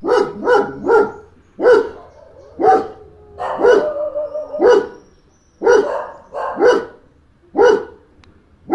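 A dog barking repeatedly, short sharp barks at roughly one a second, with a longer drawn-out bark just before the middle.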